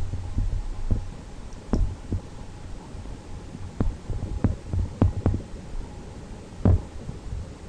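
Irregular low thumps and sharp knocks, some close together and one stronger near the end, over a steady low hum: handling bumps on a handheld camera carried through a shop.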